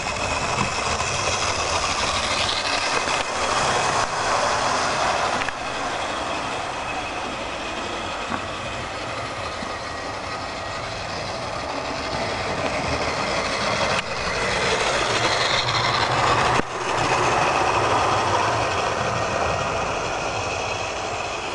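Tinplate O gauge electric model train running on nickel-silver track: the locomotive's motor whirring and the wheels rattling along the rails, growing louder and fading as the train comes close and moves away.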